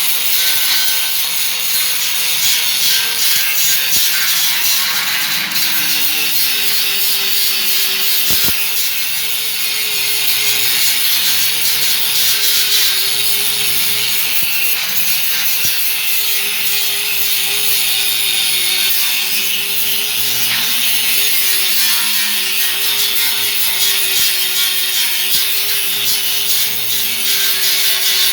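A power tool running continuously over a loud hiss, with a motor tone that wavers slightly up and down as the load changes.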